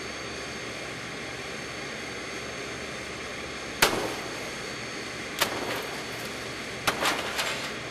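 Porcelain toilet slammed down onto a metal rack-mount switch over a steady hiss: one loud crash about four seconds in, a second crash about a second and a half later, and a quick run of crashes near the end.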